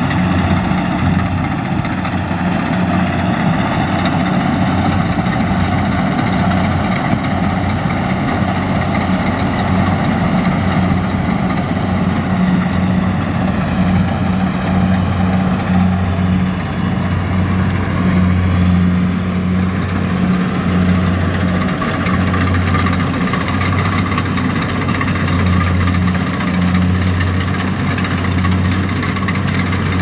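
Kubota DC70 combine harvester's diesel engine running steadily under load while cutting rice, a constant low hum with the machine's mechanical noise over it, swelling and easing a little now and then.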